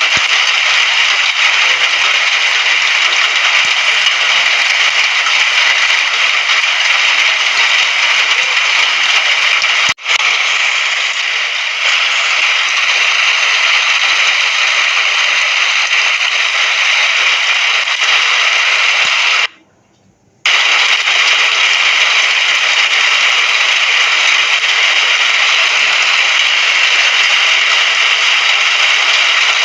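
Steady rain, a dense even hiss much like radio static. It cuts out completely for about a second about two-thirds of the way through, with a brief dip about ten seconds in.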